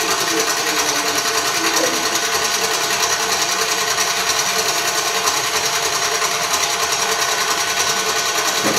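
Electric stand mixer running steadily on high speed, beating crepe batter.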